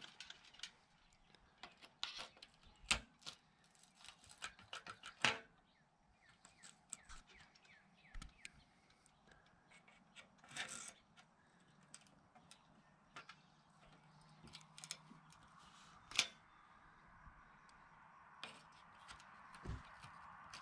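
Needle-nose pliers gripping and working a rusty cotter pin out of a mast spreader fitting: irregular metallic clicks and scrapes, with a few louder clicks.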